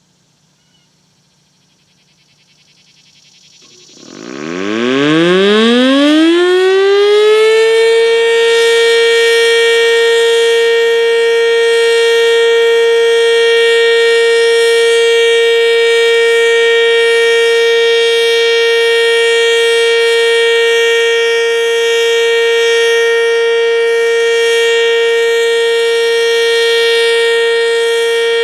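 ASC OM-117 outdoor warning siren winding up during a test. From about four seconds in its pitch climbs steeply and levels off by about eight seconds, then it holds one loud, steady tone.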